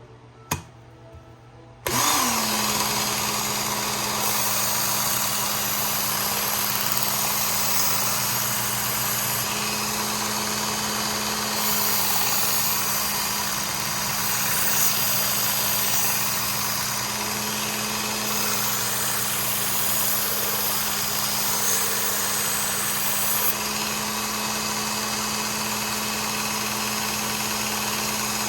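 Work Sharp Ken Onion Elite belt sharpener with its blade grinding attachment, fitted with a 600-grit belt, switches on about two seconds in and runs with a steady hum while a knife blade is sharpened on the belt. A single sharp click comes just before it starts.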